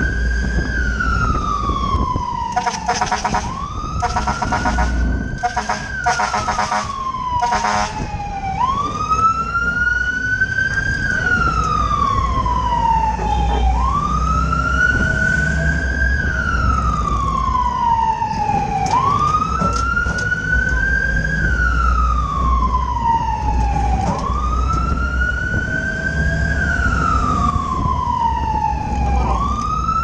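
Fire truck siren wailing, each cycle about five seconds long: a quick rise, then a longer falling sweep, over the low rumble of the moving truck. Between about three and eight seconds in, a rapid pulsing tone cuts in alongside the wail.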